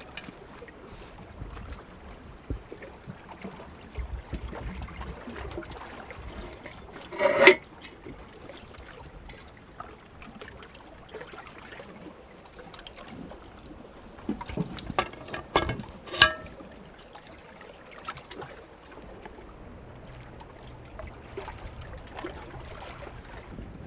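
Lake water lapping and trickling against shore rocks, with a few sharp metallic knocks from the cast-iron Dutch oven and its lid: the loudest about seven seconds in, two more around fifteen and sixteen seconds in.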